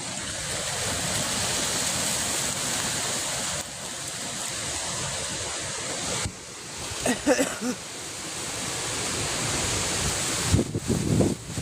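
Hurricane wind blowing hard as a steady rushing noise, with gusts thumping on the microphone near the end.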